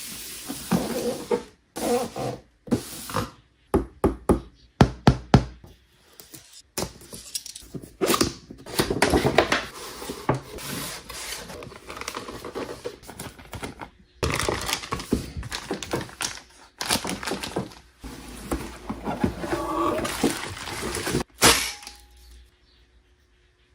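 Irregular knocks, thunks and rustling of a toy RC car and its box and packaging being handled during unboxing. The noises stop shortly before the end.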